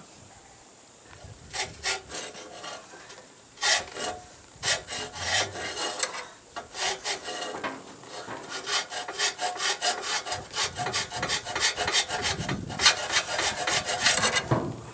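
Coarse cross-cut hand file rasping across a cast-iron manifold flange in repeated strokes, scraping off gasket residue fused to the iron. The strokes start after a short pause and come quicker and steadier from about halfway.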